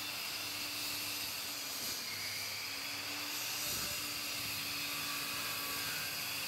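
Faint, steady background hum and hiss with no distinct event; no saw or tool is running.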